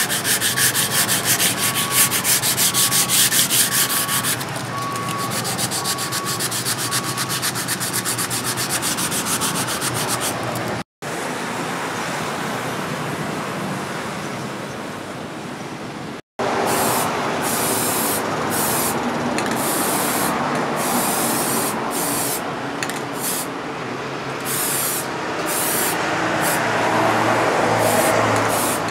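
Sandpaper rubbed in rapid back-and-forth strokes along the steel blade of a forged billhook, loudest in the first few seconds. It is followed by a cloth wiping the blade, then repeated short hissing bursts from an aerosol spray can.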